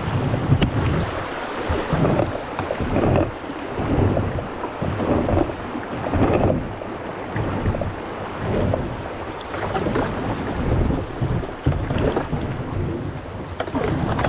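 Kayak paddle strokes splashing through river water, surging in a steady rhythm roughly once a second, with wind buffeting a kayak-mounted camera's microphone.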